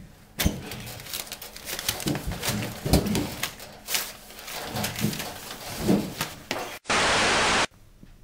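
Irregular knocks and clatter with a few short vocal sounds, then a sudden loud burst of static-like hiss lasting under a second that cuts off abruptly.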